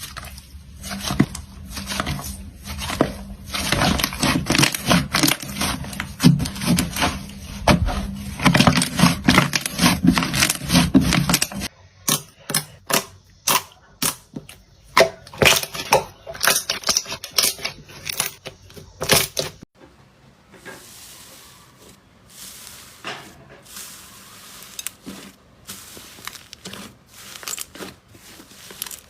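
Slime being squeezed and poked, making rapid crackling, popping clicks. The sound changes abruptly twice, with sharper separate clicks in the middle stretch and quieter clicks near the end.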